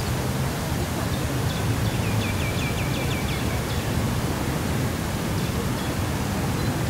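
Steady outdoor rushing noise with a low rumble underneath, even throughout. About two seconds in, a quick run of about eight short high chirps sounds over it.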